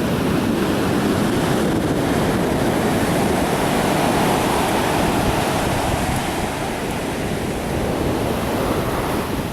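Pacific Ocean surf breaking and washing up a sand beach: a steady rushing that swells a little in the first few seconds and then eases.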